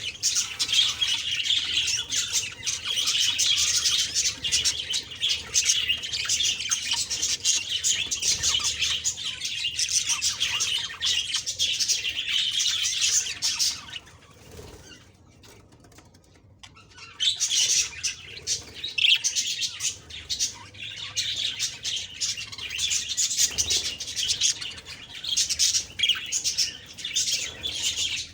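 Budgerigars chirping rapidly and continuously, breaking off for about three seconds around the middle before starting again.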